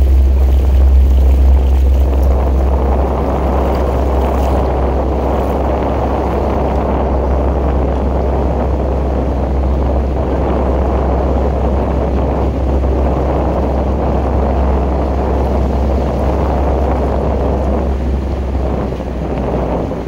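Steady low rumble of a coaching launch's outboard motor running, with wind buffeting the microphone.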